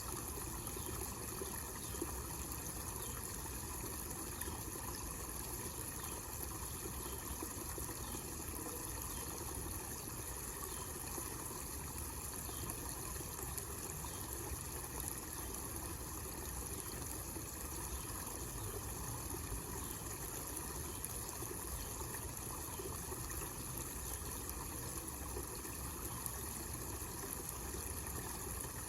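Small homemade waterfall fountain: water falling and trickling steadily into a pond basin.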